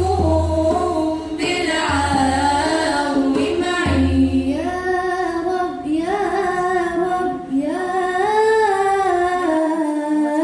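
Background music: a woman singing a slow melody in long, sliding notes.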